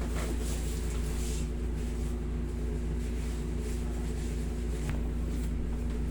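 Steady low mechanical hum of a running machine in the room, unchanging throughout, with a faint tick about five seconds in.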